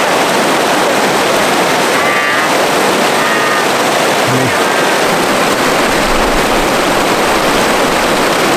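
Loud, steady rush of white water pouring over a stone river weir.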